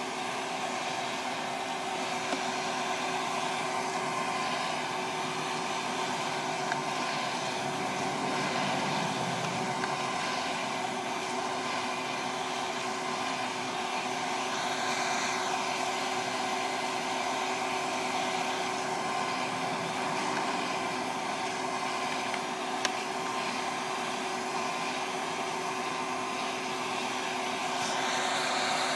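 West Bend Poppery hot-air popcorn popper running steadily as a coffee roaster, its blower fan pushing hot air through a batch of roasting coffee beans, with a steady motor hum and a few faint ticks.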